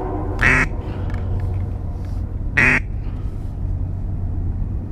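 Two short, loud duck quacks about two seconds apart, over a steady low rumble.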